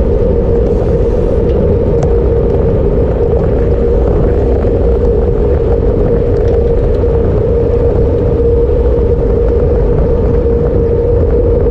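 Wind rushing over a handlebar-mounted action camera's microphone, with road rumble from a road bike's tyres, as the bike rides at race speed in a pack. A loud, steady rush with a constant hum running through it.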